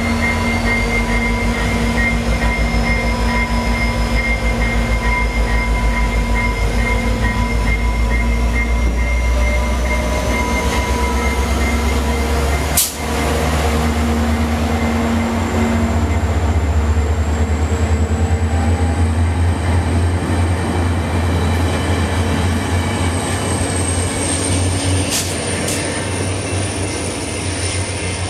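A VIA Rail passenger train led by an F40PH-2 diesel locomotive rolls past slowly as it pulls out, its heavy, steady rumble and engine drone carrying on as the stainless-steel coaches pass. A thin high tone climbs slowly in pitch over the passing, there is a short sharp break about halfway, and the sound eases a little near the end as the train moves away.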